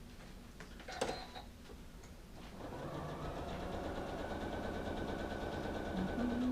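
A sharp click about a second in, then a Janome sewing machine starts up and runs steadily, stitching through fleece blanket.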